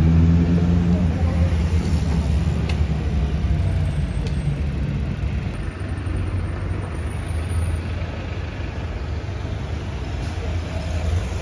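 Street traffic: the low, steady engine rumble of double-decker buses and cars on a busy city road, with one engine note falling in pitch at the start.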